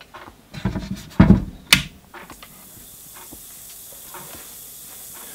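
Two dull knocks and a sharp click early on, then a steady fizzing hiss from gas bubbles forming on a rusty steel bolt during electrolytic rust removal in a washing-soda (sodium carbonate) bath. The fizzing shows that current is flowing and the process has started.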